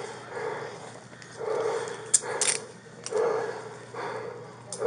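Heavy, laboured breathing, one noisy breath about every second and a half, from someone winded by a physical struggle, with a few sharp clicks in between.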